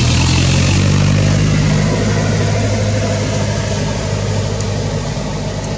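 An engine running steadily: a low, even hum with a hiss over it.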